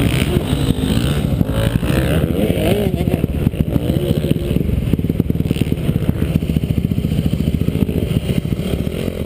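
Motocross dirt bike engine running close by, its revs rising and falling.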